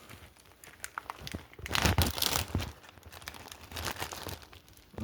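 Plastic bag crinkling and rustling as it is handled and pulled open, in irregular bursts with a louder stretch in the middle.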